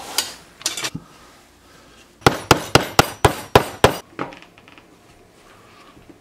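Small hand hammer tapping: a few light taps, then a quick run of seven sharp blows at about four a second, and one last tap just after.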